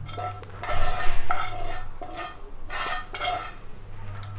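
Metal spoon scraping oily ground spice mix out of a frying pan into a steel bowl, a series of short scraping strokes with light metallic ringing.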